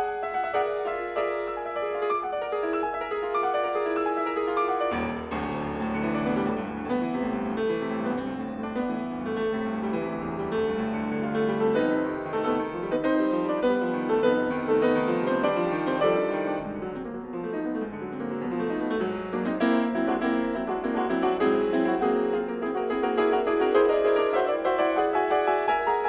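Background piano music, a flowing run of notes that fills out with lower notes about five seconds in.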